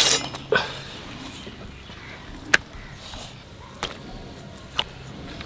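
Eel being cut on a boti blade: a handful of sharp, short clicks as the blade bites through the fish's skin and backbone, spread unevenly through the stretch.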